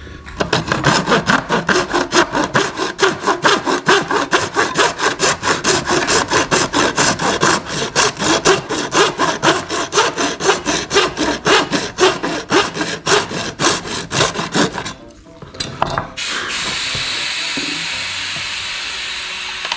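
Hand tool being worked back and forth in quick, even strokes, about four a second, shaving down the plastic of a battery adapter so it will fit into a 40V impact driver. The strokes stop about fifteen seconds in, followed by a steady hiss.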